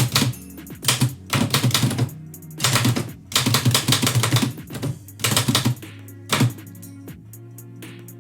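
1918 Oliver typewriter typing in quick runs of keystrokes that stop about six and a half seconds in, with lo-fi instrumental music underneath.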